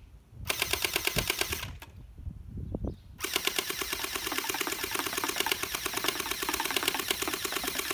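Splat'R'Ball SRB375M electric gel blaster firing water beads on full auto: a fast rattling buzz of its motor and gearbox. One short burst about half a second in, then a long continuous burst from about three seconds in.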